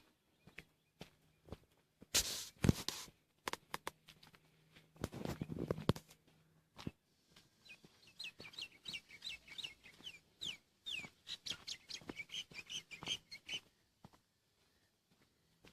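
A bird calling in a fast run of short, falling chirps, about four a second, through the second half, over faint scattered ticks. Two louder bursts of noise come about two and five seconds in.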